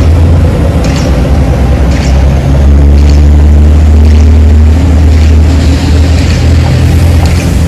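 Diesel railcar, a JR Kyushu KiHa 40-series unit, pulling away from a station: its diesel engine runs with a loud, steady low drone, and a light click comes about once a second.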